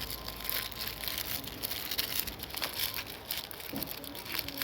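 Irregular crinkling and rustling of small cut pieces of plastic and paper being handled and stuffed into a paper squishy.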